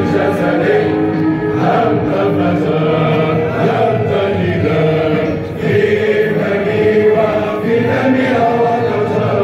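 A choir singing with instrumental accompaniment, held notes changing every second or so.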